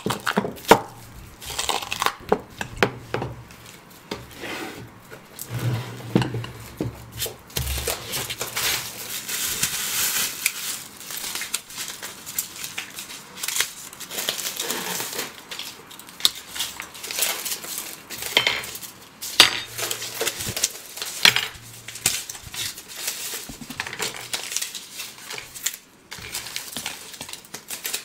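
Plastic takeout bowls, lids and plates clattering as they are unpacked and set down on a table, mixed with cutlery clinks and the crinkling of plastic wrappers and bags.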